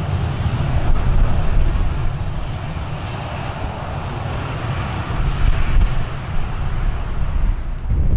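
Jet airliner's engines at high thrust on departure: a steady rushing engine noise with a deep rumble beneath.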